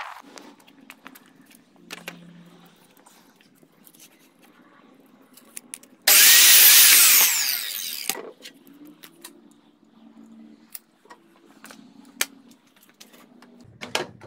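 Power miter saw run once for about two seconds, cutting wood. Quieter knocks and clicks of handling come before and after.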